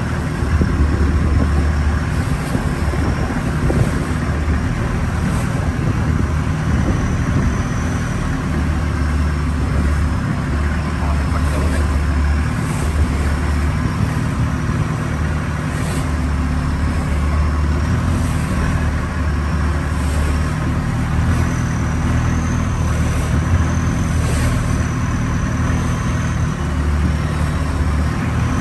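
Longtail boat's engine running steadily while the boat is underway, a loud, even low drone.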